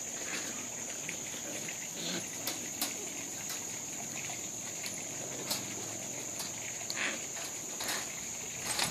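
Steady high-pitched insect chorus, with a few faint clicks and rustles scattered through it.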